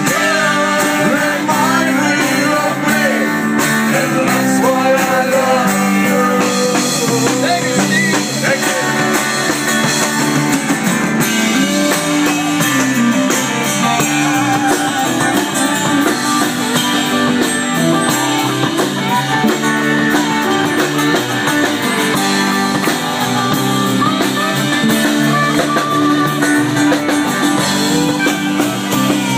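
Live band playing a song, guitars prominent, with a wavering lead melody over steady chords; loud and continuous.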